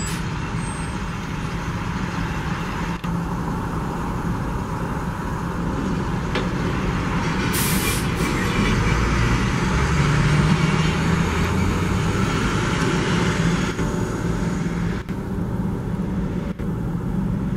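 Diesel locomotive engine running steadily, growing somewhat louder toward the middle, with a short hiss of air about eight seconds in.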